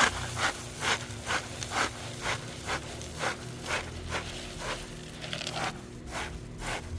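Stray cat crunching dry cat food, about two crunches a second.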